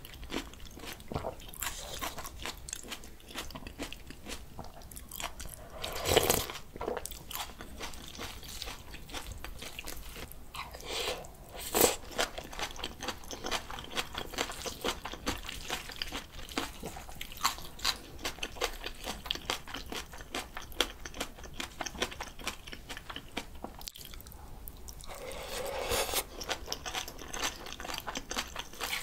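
Close-miked chewing of spicy bibimbap mixed with crisp raw radish salad and spring cabbage kimchi: dense crunching and wet chewing throughout, with a few louder moments.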